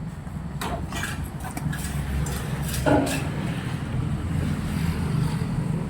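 A vehicle engine runs steadily with a low hum, with a few brief knocks over it, the loudest about three seconds in.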